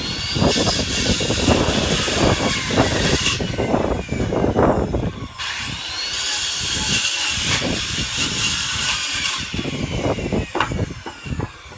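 Circular saw cutting through old two-by-six lumber twice, each cut about three to four seconds long and starting with a rising whine as the blade spins up. Knocks and crackles sound between the cuts.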